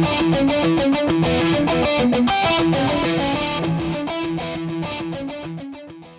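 Music: a quick, rapid-note guitar riff that fades out near the end.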